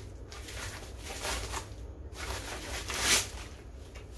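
Plastic wrapping rustling and crinkling as it is handled and pulled open, in irregular swells, the loudest about three seconds in.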